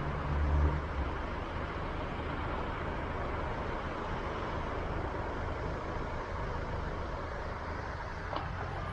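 Steady rushing wind and road noise while riding a bicycle, picked up by a head-mounted action camera, with a low rumble that is stronger in the first second.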